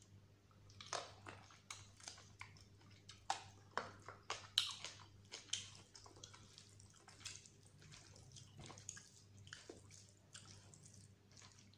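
Close-miked wet chewing and lip smacking as a piece of mutton curry is eaten, with a dense run of sharp smacks in the first half that turns quieter and sparser later. Soft squelching of rice and gravy being mixed by hand can be heard too.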